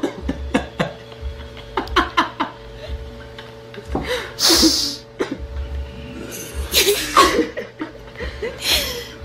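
Laughter in short, breathy bursts and snickers, with a loud hissing breath about halfway through.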